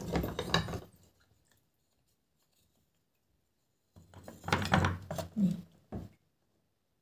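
Hard brown pieces being picked up, knocked together and set down on a ceramic plate: two bursts of clicking and scraping, a short one at the start and a longer one a little past the middle.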